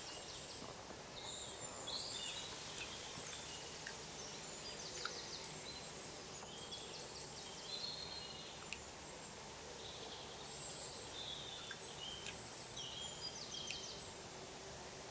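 Small birds chirping and twittering in short bursts over a low, even background hiss.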